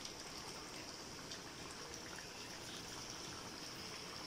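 Faint steady sizzling of beef pieces cooking in spiced oil and yogurt in a metal karahi over high heat, with a few small crackles.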